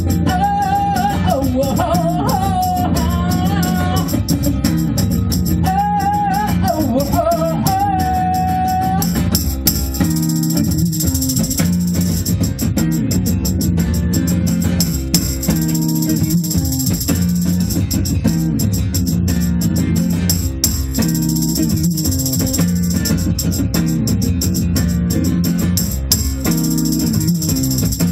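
Live acoustic rock: an acoustic guitar plays throughout, with a wavering melody line over the first several seconds. After about nine seconds a tambourine is shaken in time with the guitar strumming.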